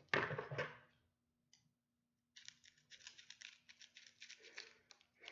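Tightly wrapped package being picked at and torn open by hand: a short rustle at the start, then, after a pause, a run of rapid crackling ticks lasting a couple of seconds as the wrapping or tape is pulled away.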